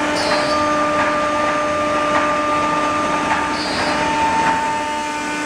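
Wood-working CNC router running as its spindle head works a board: a steady machine whine of several pitches over a constant rushing noise.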